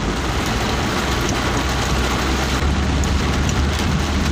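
Heavy rain hissing steadily, with a vehicle's engine running in a low, steady hum while it drives along a wet road.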